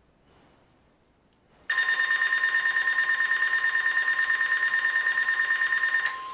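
A weather radio receiver's alarm goes off about two seconds in: a loud, rapidly pulsing electronic beeping, about ten pulses a second, for some four seconds. It is set off by the broadcast's 1050 Hz warning alarm tone during a weekly test, and that steady tone is left sounding after the beeping stops. Before it come a few faint, short, high chirps.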